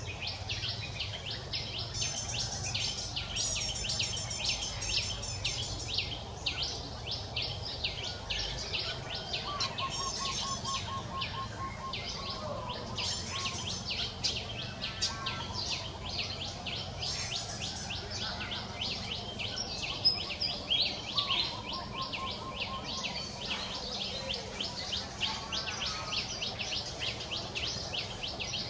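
Outdoor ambience of many birds and insects chirping rapidly and without pause, with a short, quick trill of repeated notes from a bird a few times. A brief louder sound stands out about twenty seconds in.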